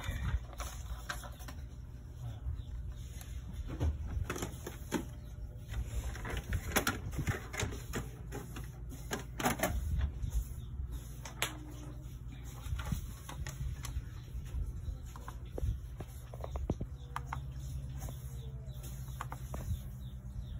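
Irregular plastic clicks and knocks from an Epson L6270 all-in-one printer being handled: its scanner lid and automatic document feeder are closed and pages are loaded into the feeder. A steady low hum runs underneath.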